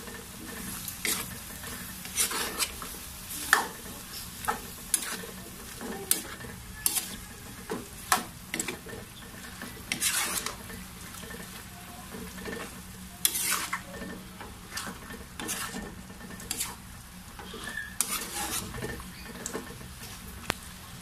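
A spatula stirring and scraping through pork and tomato paste frying in a metal pan, with irregular sharp scrapes and taps against the pan over a steady sizzle.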